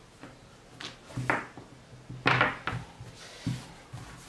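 Baklava dough wrapped around a long, thin wooden rolling pin (oklava), rolled back and forth on a table under the palms: a few soft swishing strokes of hands and dough sliding, the loudest a little past halfway, then a light knock.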